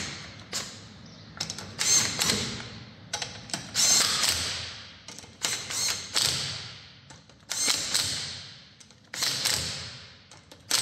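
Cordless impact wrench running wheel bolts into a car's hub in a string of short bursts, one bolt after another. The bolts are only being snugged up while the wheel hangs in the air, to be torqued later on the ground.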